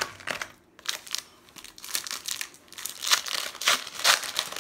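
A trading card pack's wrapper crinkling and being torn open by hand, the crackling getting busier and louder in the second half.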